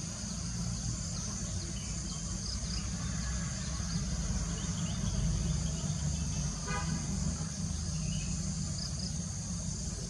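Steady high-pitched insect chorus with a low rumble underneath. About seven seconds in there is a single brief pitched note.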